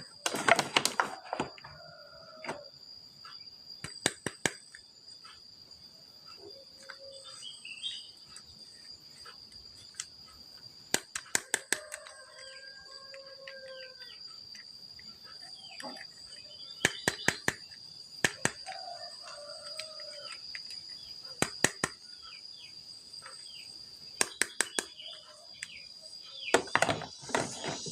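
Clusters of sharp clicks and taps every few seconds, over a steady high-pitched tone like a cricket's chirring.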